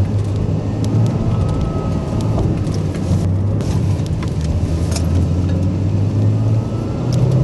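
Porsche's engine and road noise heard inside the cabin while driving at a steady pace: an even low hum, with a faint high whine above it.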